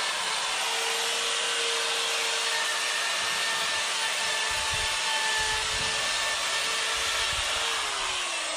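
Handheld electric rotary tool with a small burr grinding a small wooden heart: a steady high whine with a grinding hiss. Near the end it is switched off and its pitch falls as it spins down.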